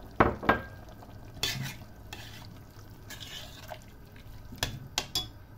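Metal spoon stirring a wet stew of kenger stalks and lamb in a stainless steel pot, mixing in a lemon and flour sauce. The spoon knocks against the pot twice near the start and three times near the end, with softer wet scraping and squelching in between.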